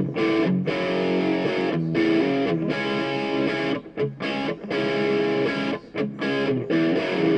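Background music led by an electric guitar with distortion, playing chords in short phrases.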